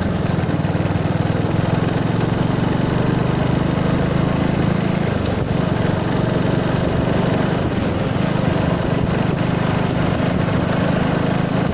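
Motorcycle engine running steadily at highway cruising speed, with wind rushing over the microphone. The engine note dips briefly about halfway through.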